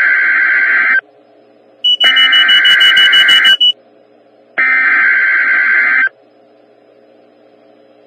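NOAA Weather Radio Emergency Alert System SAME header: three bursts of harsh, buzzy digital data tones, each about a second and a half long with about a second's pause between, over a faint radio hum. The first burst is already under way and ends about a second in. This coded header opens a severe thunderstorm warning broadcast.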